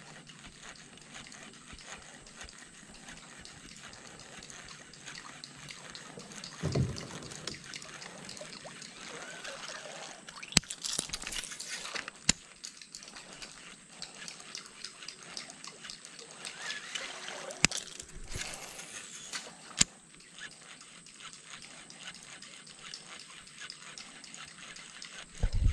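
Baitcasting reel in use from a small boat: line hisses off the spool on two casts, with sharp clicks as the reel engages, and the reel is cranked in between. Water laps against the hull throughout.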